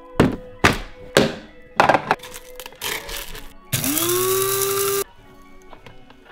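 A few hard knocks and clatters of a glass container on the countertop, then a small electric blade coffee grinder. The grinder spins up with a rising whine, runs steadily for just over a second, and cuts off suddenly.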